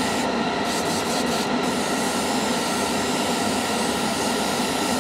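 Airbrush spraying compressed air and paint in a steady hiss, with two short dips in the hiss early on; this is a test spray on paper towel to check the thinness of freshly loaded paint.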